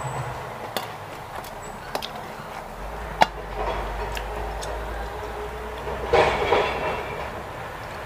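Utensils clicking and scraping against a metal serving tray as food is picked up: a few sharp taps, the loudest about three seconds in, and a longer scrape near the end. A faint low rumble runs underneath in the middle.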